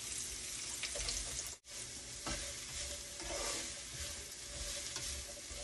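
Sliced red onions sizzling in hot oil in a nonstick frying pan as they are stirred, just after going in. The steady sizzle breaks off for a moment once, about a second and a half in.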